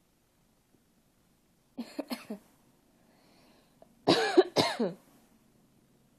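A person coughing: a quick cluster of small coughs about two seconds in, then two louder, throaty coughs about four seconds in.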